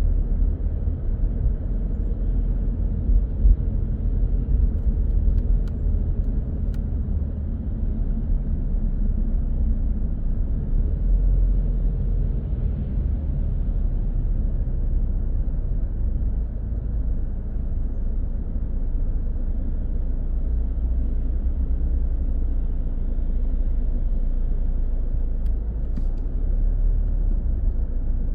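Car being driven, with a steady low rumble of engine and road noise and a few faint clicks.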